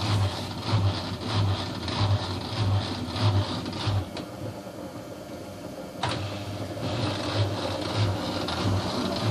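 Samsung P1053 washing machine running, with a hum that throbs about one and a half times a second over a steady whir. The throbbing pauses for about two seconds midway, then resumes with a click. The owner reports the drum bearing in this machine as noisy.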